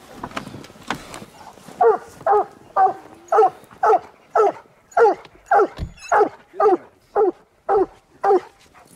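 A hunting hound barking in a steady rhythm, about thirteen short barks at roughly two a second, starting a couple of seconds in.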